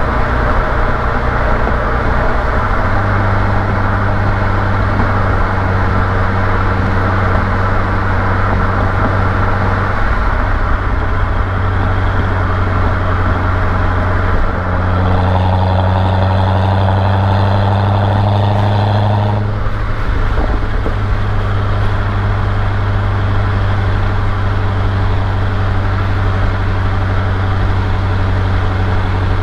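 Corvette C6's V8 engine running with a steady low drone whose pitch steps a few times as engine speed changes; a higher whine joins for a few seconds past the middle.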